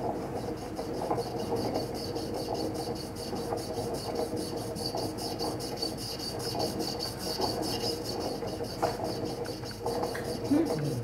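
A fast, even rasping scratch, several strokes a second, with scattered small clicks and knocks.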